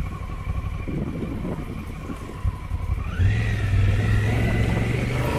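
Honda Africa Twin's parallel-twin engine running while riding; a little past three seconds in, the engine note rises and grows louder as the bike accelerates, then holds steady.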